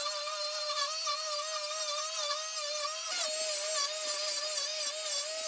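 Handheld router with a surface planing bit running steadily as it cuts through an MDF sled base, a high whine that wavers slightly in pitch, with a little more rough cutting noise from about three seconds in.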